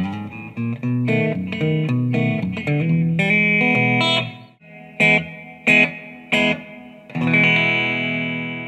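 Electric guitar played through a Fender amplifier, the mystery amp of a guessing game between a Fender GT-40 modeling amp and a vintage 1972 Deluxe Reverb. A phrase of picked notes over lower notes, then three short stabbed chords, then a last chord left ringing as it fades.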